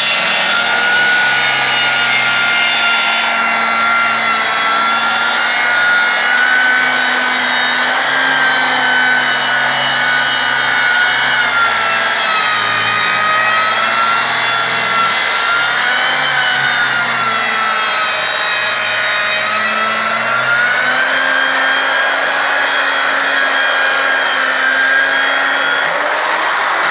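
Angle grinder fitted with a 120-grit sanding disc running steadily against a wooden door frame, sanding the wood smooth for polish. Its motor whine dips and rises a little in pitch as the disc is pressed into the wood and swept across it.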